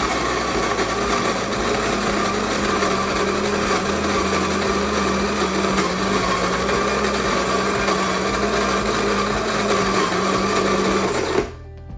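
Krups GVX2 electric burr coffee grinder running steadily, grinding coffee beans at a fine espresso setting, with a steady motor hum under the grinding noise. It cuts off suddenly near the end as its automatic two-cup cycle finishes.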